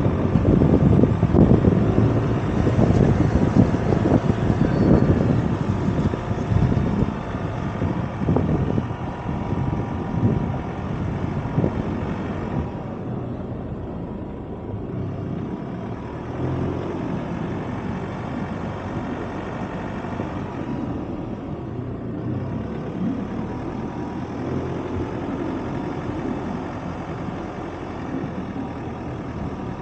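Ford Ranger Raptor pickup driving up a rough dirt mountain track: the engine runs under the noise of the tyres crunching and bumping over leaf litter and ruts. It is louder and rougher with many knocks for the first dozen seconds, then settles into a steadier, quieter drive.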